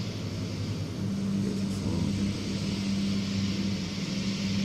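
Steady low hum with an even hiss underneath, continuous background noise in the recording.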